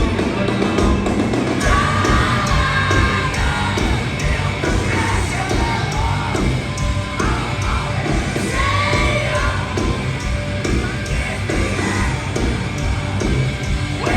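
A heavy rock band playing live: distorted guitars, bass and pounding drums, with shouted, yelled vocals over the top.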